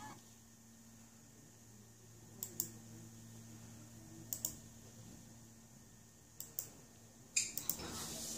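Computer pointer clicks while the user switches browser tabs: three pairs of short clicks about two seconds apart, then a quicker run of clicks near the end.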